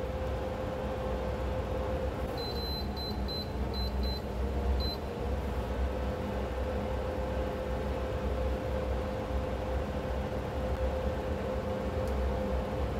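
Electric cooktop humming steadily under a pan of oil. About two seconds in, its control panel gives one longer high beep and then about six quick short ones, as the heat is turned down to low.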